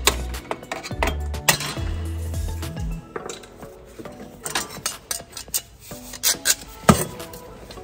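Sharp metallic clinks and taps from a hammer and the steel band clamp on a truck's DPF canister as the clamp is knocked loose and pulled off. The sharpest clink comes near the end. Background music with a bass line runs underneath.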